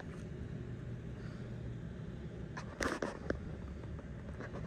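Steady low mechanical hum throughout, with a few short clicks and scrapes about three seconds in as fingers pick a small spring out of the oil in the oil pan.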